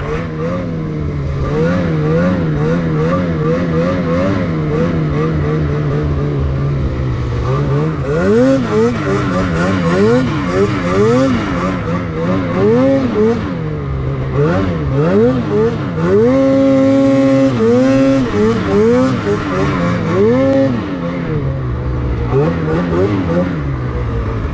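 Lynx Boondocker snowmobile's 850 E-TEC two-stroke engine running under throttle in deep snow. Its pitch is fairly steady at first, then rises and falls over and over as the throttle is worked, held high for a couple of seconds around the middle.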